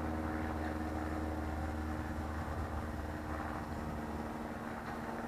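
Steady hum of propellers and motors overhead, a few held tones over a low drone, even throughout.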